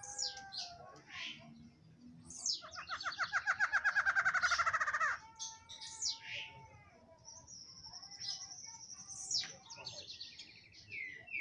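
Barred antshrike singing: a loud, rapid run of repeated notes lasting nearly three seconds, with shorter high chirps and whistles before and after it.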